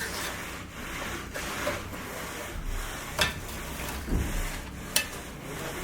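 Rough scraping strokes, several in the first two seconds, then a low thud and two sharp knocks from hand work on a building site.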